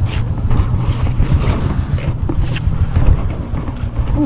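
Motorcycle engine running, a steady rapid low pulsing, with a few light knocks over it.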